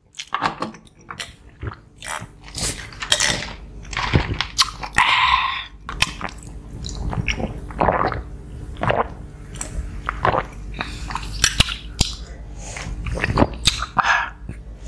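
Close-up mouth sounds of people drinking juice from glasses and chewing: gulps, swallows and wet clicks in short, irregular bursts.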